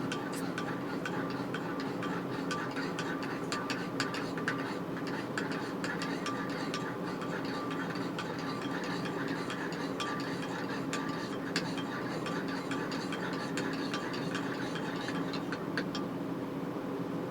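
A steady hum with a faint high tone, overlaid by many small irregular clicks and ticks that stop about sixteen seconds in.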